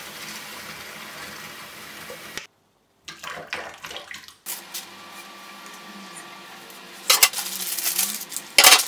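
Kitchen tap running steadily into a sink, then, after a brief cut to silence, stainless steel pots and pans being handled and washed, clinking and clattering, with two loud clanks near the end.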